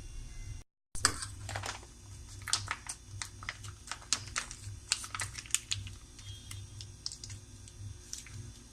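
Spoon or utensil clicking and scraping against a bowl while mixing a salad with mayonnaise: light, irregular clicks, several a second.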